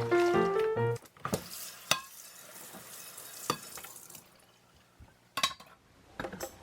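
Background music for about the first second, then the hiss of running tap water at a kitchen sink with a few sharp clinks of dishes. The water stops about four seconds in, and a few more clinks follow.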